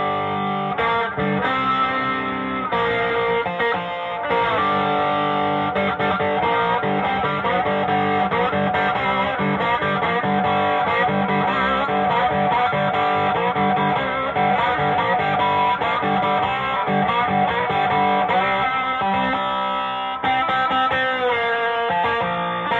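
Les Paul electric guitar played through a handbuilt tweed-circuit tube combo amp with two 6L6 output tubes, a 5Y3 rectifier and 12AX7 preamp tubes, driven with an overdrive pedal. Continuous playing of held chords and lead notes.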